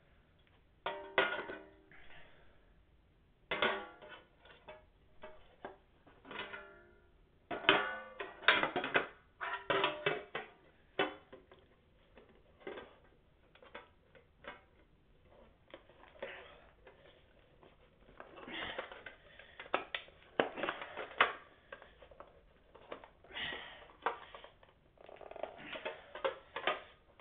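Two frying pans knocking and scraping against each other as they are rolled one inside the other. The clanks come in irregular bursts, with a brief metallic ring after the louder hits.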